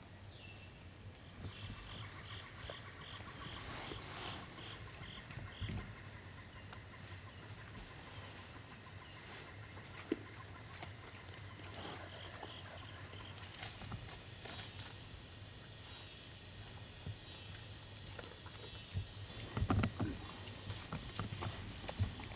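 Chorus of crickets and other insects, two high steady drones, with a run of quick, evenly spaced chirps in the first few seconds. Near the end come a few louder rustles and knocks.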